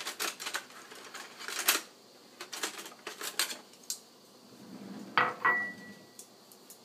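Kitchen utensils clattering and clinking in several short clusters of sharp clicks, with a brief ringing tone late on, as chopsticks are fetched from among other utensils.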